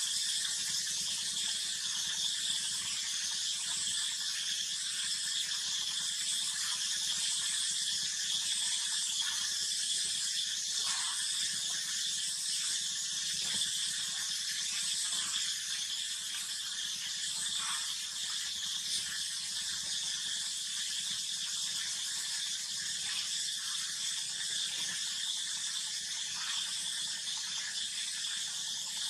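A steady, high-pitched insect chorus, buzzing without a break and swelling and fading in a slow, regular wave.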